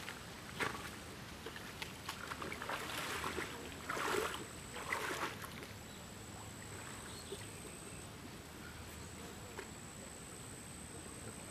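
Water splashing and dripping, with wet material rustling, as a carp retaining sling is handled in the lake margin and lifted out; the loudest splashes come about four to five seconds in.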